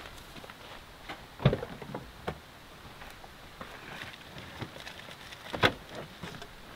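Ram 1500 pickup driver's door unlatched and opened with a clunk about a second and a half in, then small clicks and rustles of gear being handled in the cab, and a sharp knock near the end.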